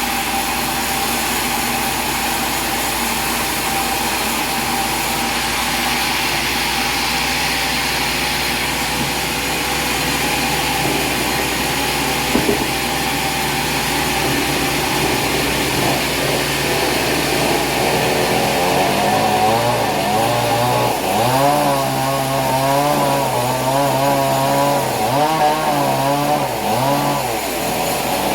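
Small gasoline engine running steadily, then rising and falling in speed repeatedly from about two-thirds of the way through.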